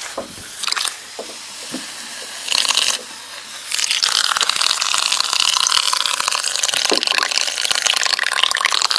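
A balloon emptying through the exhaust nozzle of a small 3D-printed balloon-powered boat, a loud rapid sputtering hiss of air and water that starts about four seconds in. The exhaust sits a little above the waterline, so the air sputters at the surface rather than bubbling fully underwater.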